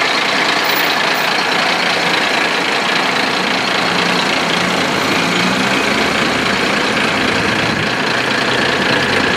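Heavy truck's diesel engine idling steadily at close range.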